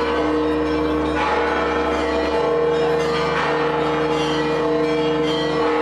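Church bells ringing continuously, several steady bell tones overlapping.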